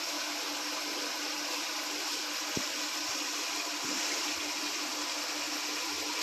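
Steady background hiss with a faint hum, and a few light clicks of a metal spoon against the bowl as raw eggs and spices are stirred, about midway.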